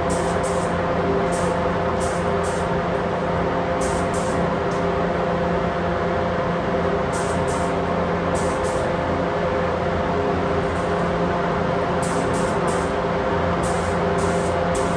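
Steady rush of air with a constant hum from a paint spray booth's ventilation while a compressed-air gravity-feed spray gun is in use, with short faint hissing flickers every few seconds.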